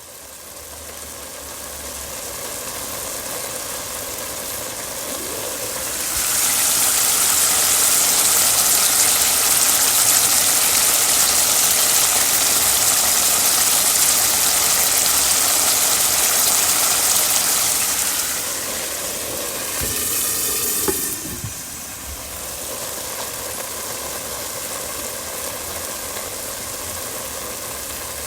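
Food sizzling and frying in a hot pan, a steady crackling hiss that swells louder about six seconds in and eases back down after about eighteen seconds.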